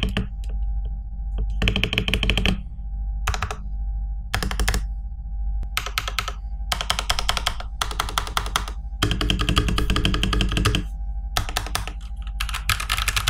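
Typing on a TM680 65% mechanical keyboard with a rotary knob, in bursts of rapid key clicks separated by short pauses, a typing sound test. Background music plays underneath.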